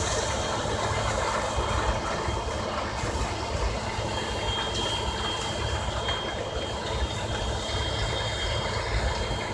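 Claas Lexion 480 combine harvester running steadily, a constant mechanical din with a deep rumble underneath and a faint high whine.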